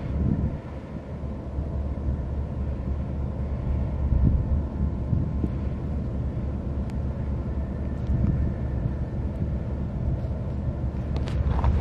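Wind buffeting the microphone outdoors, a steady low rumble that swells and dips, over a faint constant mechanical hum; the buffeting grows stronger near the end.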